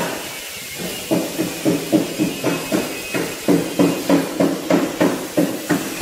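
Background music with a steady quick beat, about three pulses a second, dropping out briefly at the start.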